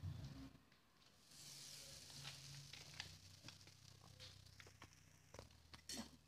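Faint sizzle of a thin wheat-flour mande laid on a hot upturned pot, setting in about a second in with small crackles and ticks, over a steady low hum.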